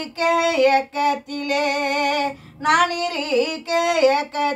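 A 65-year-old woman singing a Tamil folk song solo, with no accompaniment. She holds long notes with quick dipping turns and breaks briefly between phrases.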